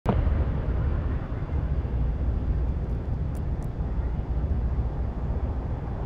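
Low, rumbling outdoor background noise whose level flickers constantly, with two faint, short high sounds about halfway through.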